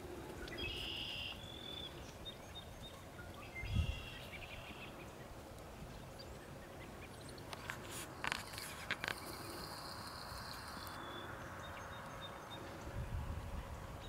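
Outdoor ambience over a grass field, with a few short bird chirps in the first few seconds, scattered clicks and a high hiss in the middle, and a low rumble building near the end.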